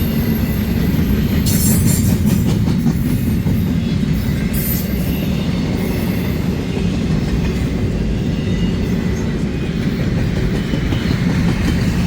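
Train rolling past close by: a steady, heavy rumble of steel wheels on the rails, with brief high-pitched wheel screeches about two seconds in and again near five seconds.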